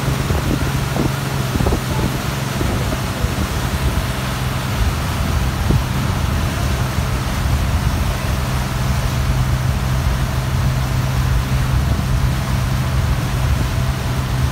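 Motorboat engine running steadily at speed, a constant low drone, under the rushing hiss of the wake and wind.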